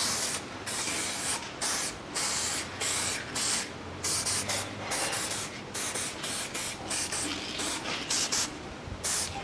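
Aerosol lubricant spray can hissing in a rapid series of short bursts, about two a second, as lubricant is sprayed onto the wheel hub.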